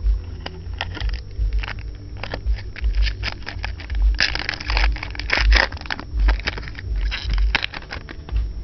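Trading cards and their foil pack wrapper being handled: crackly rustling and a run of clicks, thickest around the middle, over dull low thuds.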